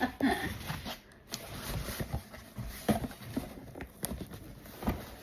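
Rustling and handling of a package being opened, with scattered clicks and a couple of soft knocks about three and five seconds in.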